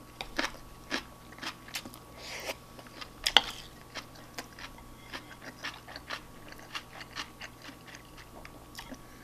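Close-miked chewing and mouth smacks of a person eating shrimp fried rice: many short clicks and wet smacks, the loudest a bit over three seconds in, with chopsticks now and then scraping the bowl.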